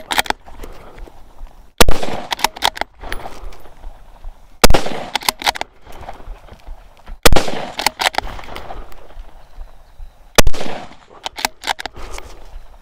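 Four shots from a .223 Ruger American Ranch rifle, fired about every three seconds. Each loud crack is followed by a short rattle of smaller sharp cracks and a fading echo.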